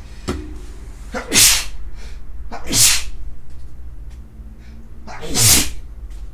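A man sneezing three times: about a second and a half in, again near three seconds, and once more near the end.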